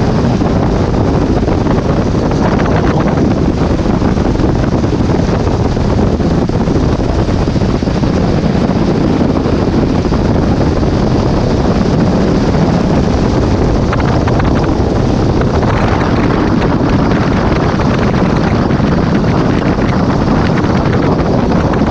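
Loud, steady wind rush buffeting the camera's microphone at downhill longboarding speed, heaviest in the low rumble, with a couple of brief surges.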